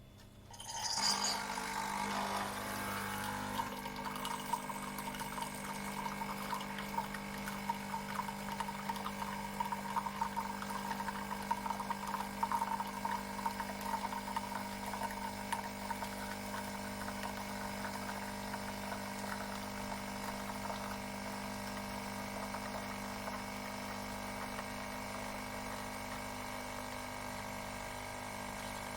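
Tassimo Bosch Vivy 2 pod coffee machine dispensing: its pump starts about a second in and hums steadily while hot water pours out with a crackling, spluttering hiss.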